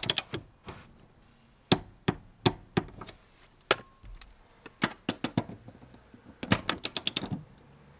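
Sharp ratchet clicks from a torque wrench with a 15 mm socket tightening a seat-mount bolt: scattered single clicks, then a quick run of about eight clicks near the end.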